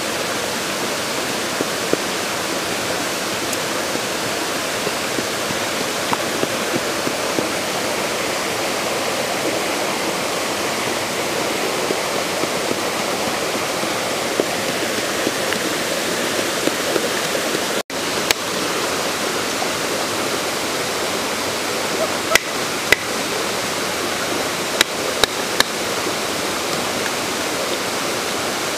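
Steady rush of a waterfall, with a few sharp knocks of a knife blade striking a wooden chopping block as cow skin is cut, most of them in the second half.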